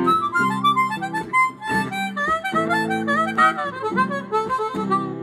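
Harmonica played cupped to a microphone, running short phrases with bent notes over sustained acoustic guitar chords.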